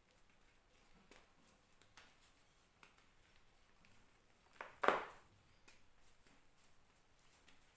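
Reformed gym chalk being crushed by hand: faint scattered crackles, then one loud crunch just before five seconds in.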